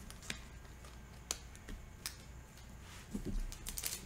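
Foil trading-card pack being handled and torn open by hand: a few faint, sharp crackles about a second apart, then a quicker run of crinkling near the end.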